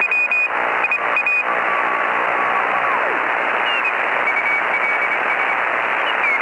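Radio receiver static: a steady hiss, muffled as through a narrow radio channel, with thin whistling tones, a few of them sliding down in pitch, and some crackles in the first second or so.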